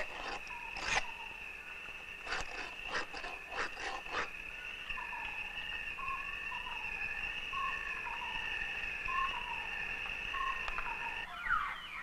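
Steady, high-pitched drone of rainforest insects, with a run of quick scraping strokes in the first four seconds: a metal blade being whetted on a stone. Near the end, African grey parrots break in with sliding whistled calls.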